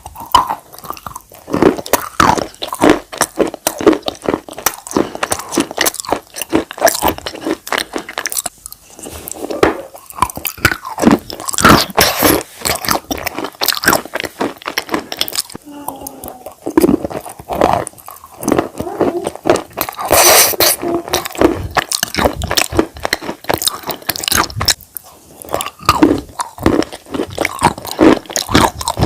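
Biting and chewing of dry white clay and chalk pieces: a dense run of sharp crunches, one after another.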